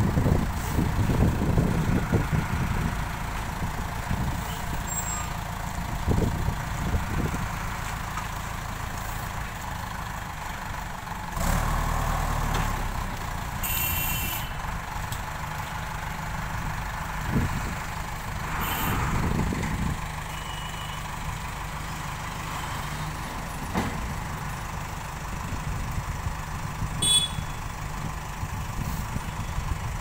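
JCB backhoe loader's diesel engine running, louder and uneven in the first few seconds while the front bucket is in the soil pile, then idling steadily with a low rumble. A few short high-pitched sounds are heard around the middle and near the end.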